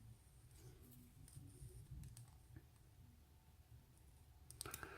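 Near silence with a few faint, light clicks of small metal lock parts being handled as a pin stack is taken out of a disassembled lock cylinder, a slightly louder cluster of clicks near the end.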